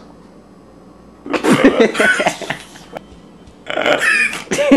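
A person's voice making two bursts of wordless vocal sounds, the first starting about a second and a half in and the second near the end.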